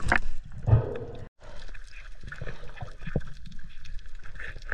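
Underwater ambience picked up by a diving camera: a steady wash of water noise sprinkled with scattered small clicks and crackles. There is a dull thump under a second in, and the sound cuts out completely for a moment about a second in.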